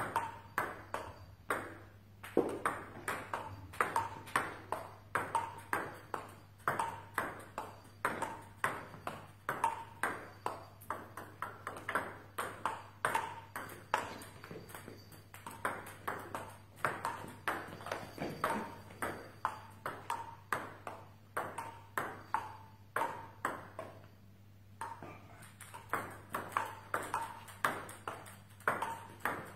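Table tennis balls clicking off the bats and table in a quick, even run during multiball forehand practice, with two short pauses.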